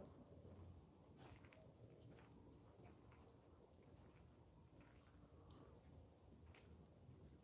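Faint crickets chirping at night: a steady, even pulse of high chirps, about five a second, over near silence.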